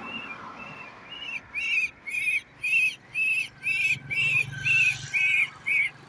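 A captured myna giving repeated distress calls, short pitched cries about two a second that grow louder about a second in.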